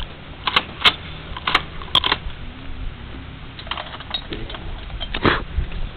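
.30 caliber machine gun firing irregular single shots, several over the first two seconds and one more near the end, instead of running in bursts. It jams every couple of shots, which the shooter puts down to a too-tight barrel that needs headspacing.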